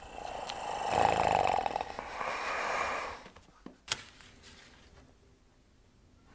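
A man's raspy, rattling breath lasting about three seconds, then a single short click, then near quiet.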